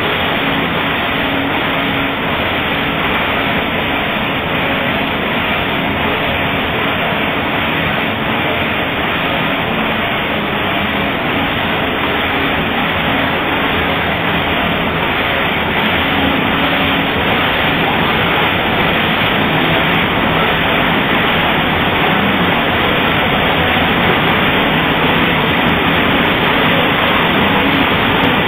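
Many Stoll computerized flat knitting machines running at once: a loud, steady mechanical din.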